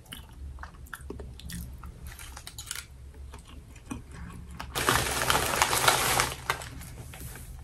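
Close-up chewing of a mouthful of fried rice, with small wet mouth clicks. About two-thirds of the way through comes a louder rustling scrape lasting under two seconds.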